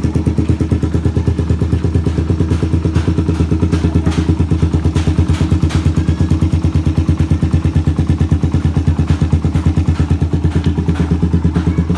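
2013 Suzuki Raider 150 carbureted motorcycle's stock single-cylinder four-stroke engine idling with an even, steady pulse and no revving.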